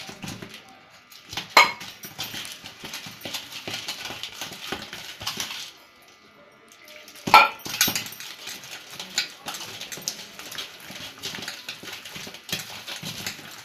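A hand mixing and kneading a thick flour batter in a bowl: wet squelching and scraping, with the bangles on the wrist clicking against each other and the bowl. There are two sharp clinks, one early and one about halfway, and a brief pause in the mixing just before the second.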